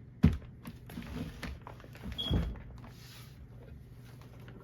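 Cardboard fireworks cakes being handled and set down: a sharp thump just after the start, a duller thump a little past two seconds, and light rustling and scraping of the cardboard in between.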